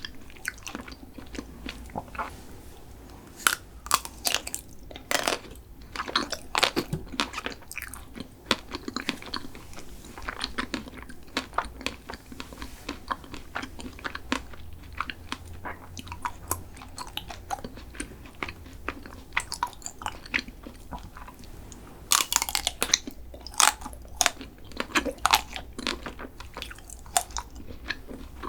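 Close-miked eating: a person biting and chewing crunchy food, with irregular sharp crunches and crackles and a burst of loud crunching near the end.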